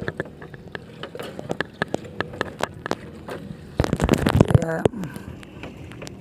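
Irregular clicks, knocks and scraping of a wet rope being hauled and handled by hand aboard an outrigger boat, with a louder, denser clatter about four seconds in.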